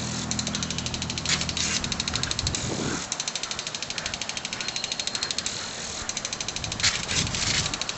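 Impact lawn sprinkler ticking rapidly and evenly as it sweeps, about ten ticks a second, with its water spray hissing louder twice.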